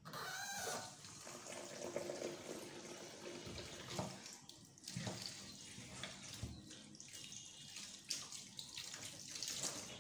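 Kitchen tap running into a large aluminium pot of fufu mash while a hand works the wet mash, with a few soft knocks against the pot. The water starts suddenly at the start.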